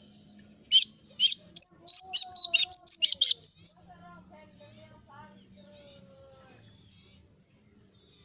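Jongkangan, a moulting songbird, calling in a quick run of about a dozen sharp chirps that starts under a second in and stops before four seconds, then only faint soft calls. The owner says its voice is hoarse from the moult and it cannot yet sing full, open song.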